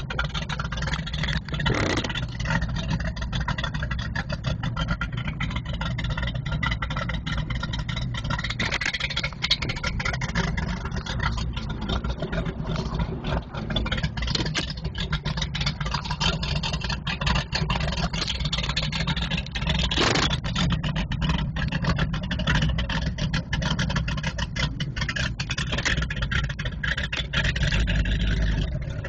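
Motorboat engine running steadily with a deep, even rumble, with a couple of brief bumps about two seconds in and near the middle.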